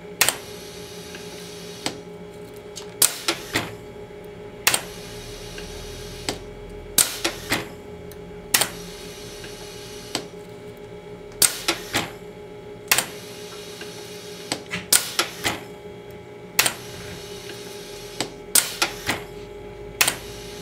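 Hook-type toroid coil winder running through its winding cycle, pulling 25 AWG magnet wire through a small toroid core one turn at a time: sharp mechanical clicks and clacks about once a second, often in quick pairs or threes, over a steady machine hum.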